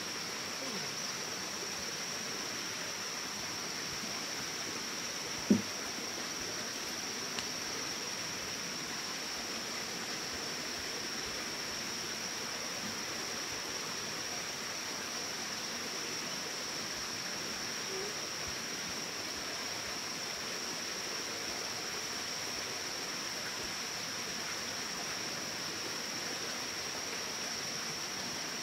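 Steady outdoor natural ambience: a constant hiss with a steady high-pitched drone over it, and a single sharp knock about five and a half seconds in.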